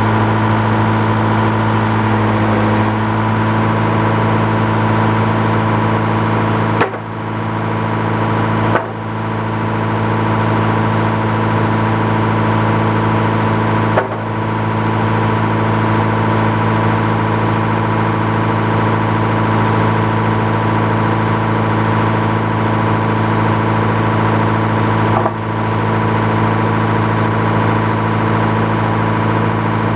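An engine running steadily at a constant speed, with a few sharp clicks, each followed by a brief dip in loudness.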